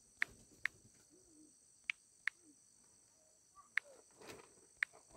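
Touchscreen keyboard key-press clicks as letters are typed on a phone: about six short, sharp taps at an uneven pace.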